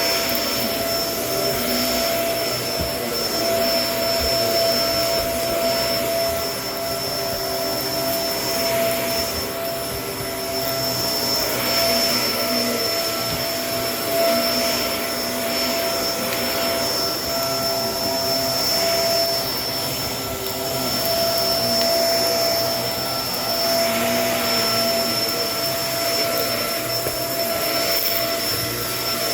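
Kenmore vacuum cleaner running steadily, a high motor whine over the rush of suction, its level swelling and easing gently every couple of seconds.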